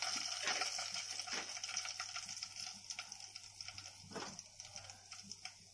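Whole spices (bay leaves and dried red chillies) sizzling and crackling in hot oil in a kadhai, just after being tipped in. The sizzle dies down steadily as they settle.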